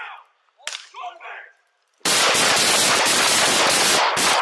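Police gunfire: a sudden burst of rapid shots running together for about two seconds, starting about halfway through.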